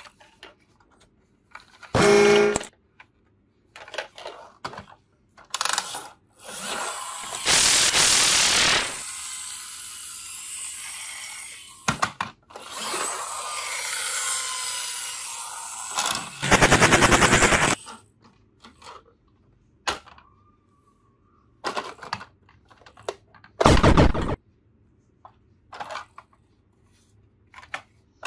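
Plastic clicks and clatter from a toy Mack car-hauler truck being handled, tilted and opened, with several loud bursts of rapid rattling.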